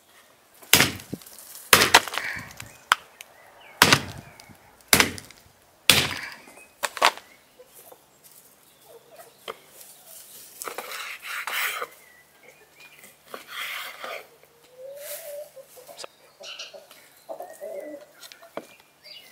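Knife chopping raw beef ribs on a wooden cutting board, sharp chops about once a second for the first seven seconds, then softer cutting and scraping through the meat. Chickens cluck now and then in the second half.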